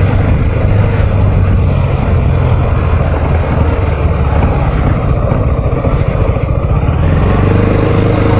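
Yamaha X-Max 250 scooter's single-cylinder four-stroke engine running as the scooter rides along at town speed, heard from the rider's position together with a steady rushing noise. The engine note becomes steadier near the end.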